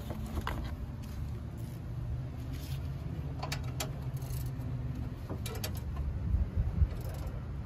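Open-end spanner working a bolt at the AC condenser: a few light metal clicks, three close together about halfway through and two more a couple of seconds later, over a steady low background rumble.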